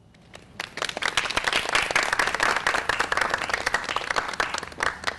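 Audience applauding: many hands clapping, starting about half a second in and thinning out near the end.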